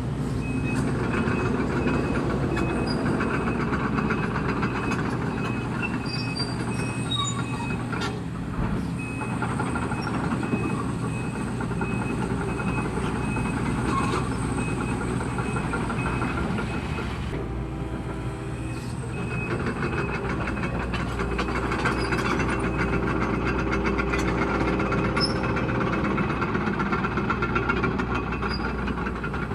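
Link-Belt 210 tracked excavator working: its diesel engine and hydraulics run steadily, with a few sharp metal knocks and clanks as it pushes and handles scrap metal and engine cylinder blocks. The engine note drops and changes for a couple of seconds around the middle.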